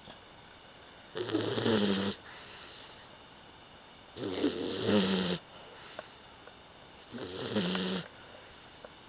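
English Bulldog puppy snoring in her sleep: three snores about three seconds apart, each lasting about a second.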